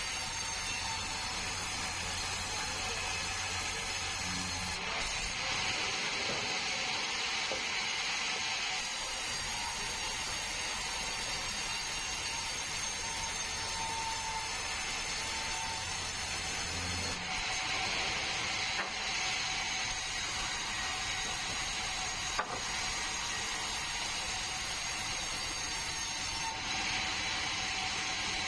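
Sawmill saw running steadily through a bengkirai hardwood log, a constant high machine whine under the rasp of the cut. The cutting hiss grows louder three times for a few seconds each, about five seconds in, past halfway and near the end.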